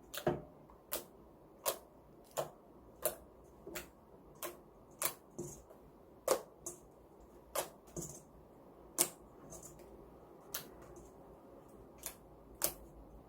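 Slime being stirred in a bowl after the activator goes in: a run of sharp clicks and taps, roughly one every 0.7 seconds, growing sparser after about nine seconds.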